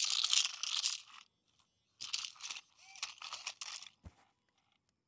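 Remote-control toy king cobra snake running over a stony surface: its wheels and plastic body scrape and crunch in three stop-start bursts as it keeps catching on the stones.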